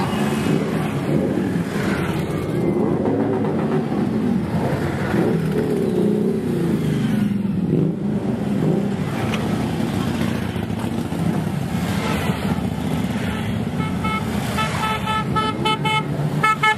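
Harley-Davidson V-twin motorcycles rumble past one after another, their engines revving up and down. Near the end, a horn beeps several times in quick succession.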